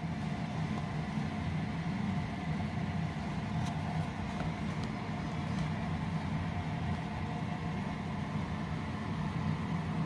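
A steady low mechanical hum, even throughout, with a faint higher tone above it.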